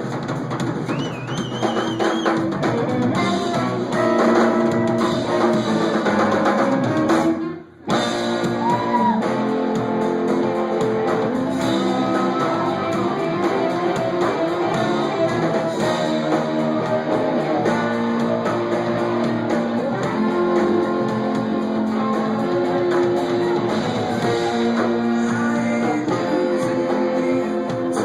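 Live rock band music with guitar and drums, played continuously. About seven and a half seconds in, the sound drops out for a moment before carrying on.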